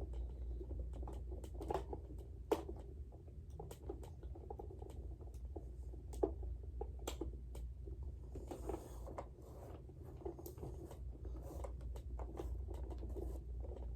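A screwdriver working a tight screw out of the plastic body of a Robosapien V2 toy robot, with irregular small clicks, scrapes and taps of plastic being handled, over a low steady hum.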